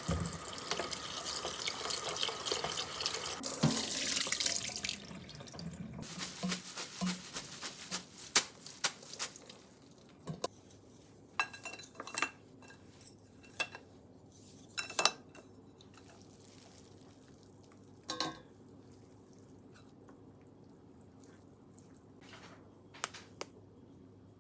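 Tap water running onto cooked somen noodles in a stainless steel pot in the sink, fading out about five seconds in. Then scattered light clicks and knocks as bamboo mats and ceramic plates are handled on a counter.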